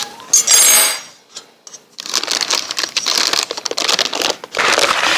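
A brief high-pitched cry about half a second in, then a metal cake pan clattering and scraping as it is tapped and worked upside down over a wire cooling rack to free a sponge cake that has stuck to the ungreased pan, a dense run of metallic clicks and rattles.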